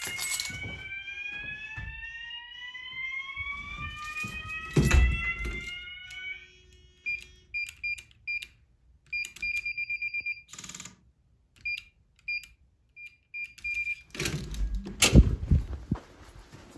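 System Sensor horn strobes sounding slow whoop: several slow rising sweeps that overlap, stopping about six and a half seconds in. Then a run of short, high beeps in irregular groups, and a loud clatter with a thump near the end.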